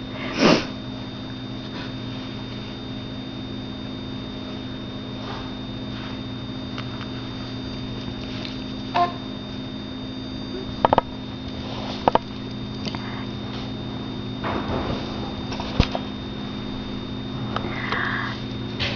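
Baby's small noises over a steady mains hum: a short sneeze about half a second in, then scattered sniffs and soft clicks, and a brief vocal sound near the end.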